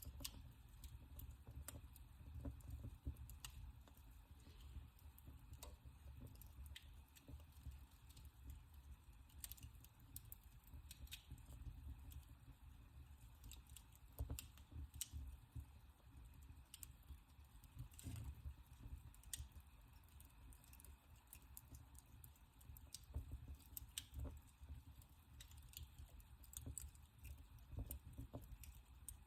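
Wood fire burning in a fireplace, faint, with irregular small crackles and a few sharper pops over a low rumble of the flames.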